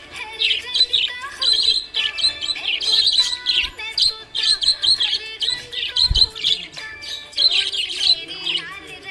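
Small pet parrots chirping and chattering: dense runs of short, high chirps, with a brief low thump about six seconds in.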